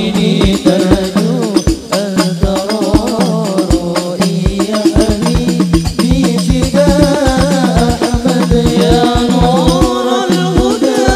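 Hadrah ensemble: male voices singing an Arabic devotional song over rebana frame drums with small jingles, beating a steady, driving rhythm with a jingling rattle on top.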